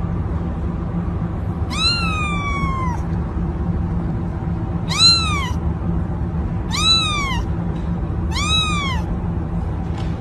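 Kitten meowing four times: one long call that falls in pitch, then three shorter meows that rise and fall. A steady low background hum runs under the calls.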